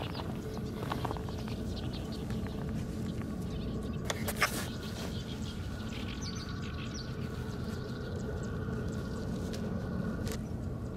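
Small birds chirping now and then over a steady low outdoor rumble, with one sharp click about four and a half seconds in.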